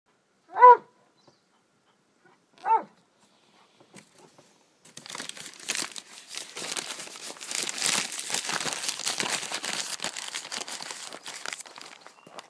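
Two short dog barks about two seconds apart, then from about five seconds in a continuous crinkling, crackling rustle.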